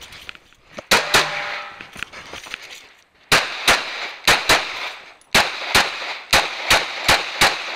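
Rapid 9mm pistol shots from a Glock 19, about a dozen in quick pairs: two near the start, then after a short pause five more pairs in steady succession.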